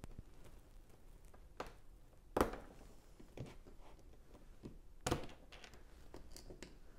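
Plastic LEGO pieces being handled and pressed together: a few sharp clicks and knocks, the loudest about two and a half seconds in and another about five seconds in.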